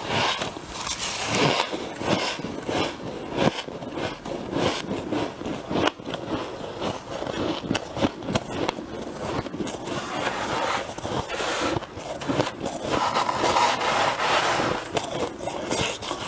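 Close-up crunching of freezer frost being bitten and chewed, a dense run of crackly crunches with no pause.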